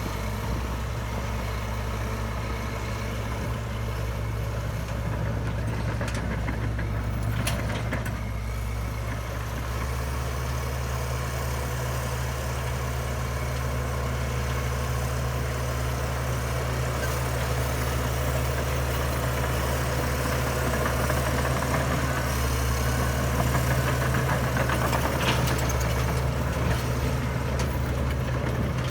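Heavy diesel engine of earthmoving machinery running steadily. Its low note fills out about ten seconds in, and it grows a little louder toward the end.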